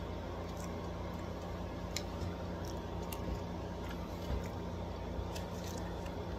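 Eating sounds: chewing, with scattered short mouth and spoon clicks over a steady low hum.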